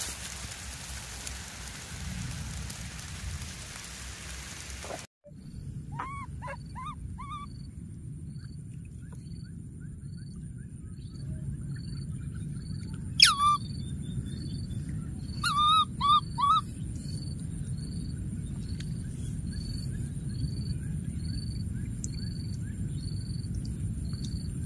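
A steady hiss for about five seconds, then a sudden change to outdoor ambience: a short high chirp repeating about every 0.7 seconds over a faint continuous high whine and a low rumble. Short falling animal calls come in groups over it: four quick ones just after the change, one loud sharp call near the middle, and three more a couple of seconds later.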